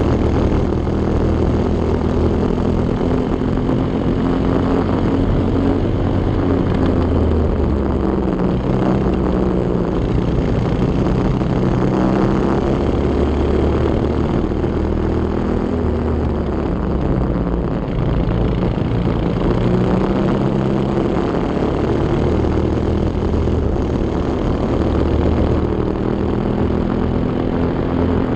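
Go-kart engine running hard through a lap, its pitch climbing along the straights and falling away as it slows for the corners, three times over.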